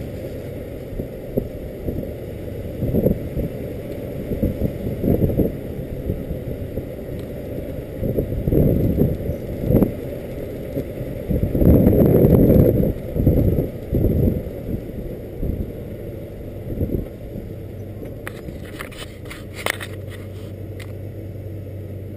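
Wind buffeting and rumbling road noise on a camera mounted low on the side of a Ford F-250 Super Duty pickup driving a prairie dirt track, rising and falling in gusts with the loudest stretch about halfway through. Near the end come a few sharp clicks and a steady low hum.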